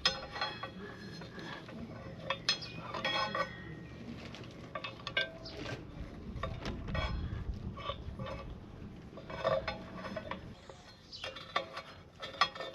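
Metal tools clinking and tapping against metal while a motorcycle tyre valve stem is fitted to the wheel rim: irregular short clicks, some ringing briefly, fewer in the middle and busier again near the end.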